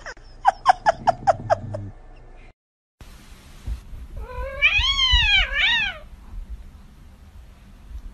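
Cats meowing: first a run of about six short, quick cries in little more than a second, then a kitten's long, loud meow that rises and falls, followed at once by a shorter second meow.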